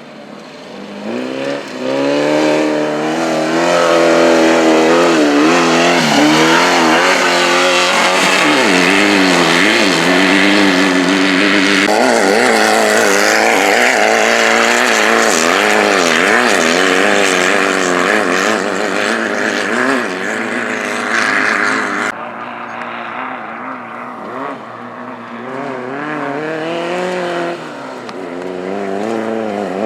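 Class 11 off-road race cars, air-cooled Volkswagen Beetle flat-four engines, revving hard, their pitch constantly rising and falling with throttle and gear changes. The sound drops suddenly about two-thirds of the way through, and another car's engine builds up near the end.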